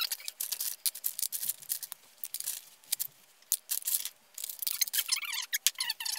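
Plastic lipstick and lip-gloss tubes and their packaging being handled and sorted, making a run of light clicks, taps and rattles.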